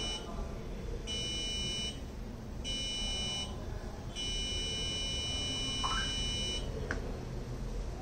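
A piezo buzzer on an Arduino Nano Morse-code keyer beeps a high steady tone while the eye-blink sensor is covered. The end of one short beep is followed by two more short beeps and then one long beep of about two and a half seconds. Together they key dot-dot-dot-dash, the Morse letter V.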